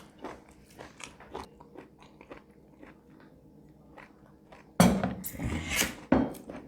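Close-miked eating: soft, scattered wet chewing clicks, then a loud crunchy bite and chew almost five seconds in.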